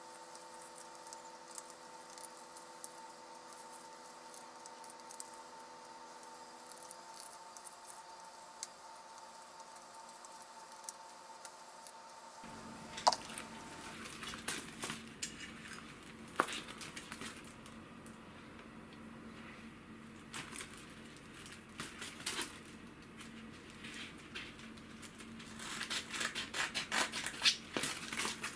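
A carving knife shaving a wooden spoon in faint, scattered scrapes and clicks over a steady low hum. Partway through, a paper sandpaper package is rustled and handled. Near the end scissors snip and crinkle through it in a quick run.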